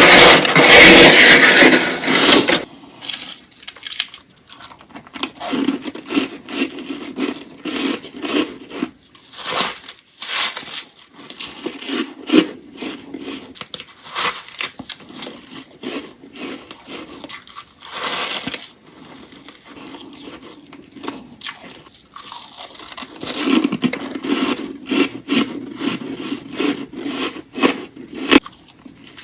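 Humidifier-built freezer frost scraped and crunched close to the microphone. A loud scrape lasts about the first two seconds, then comes a long run of short, irregular crisp crunches.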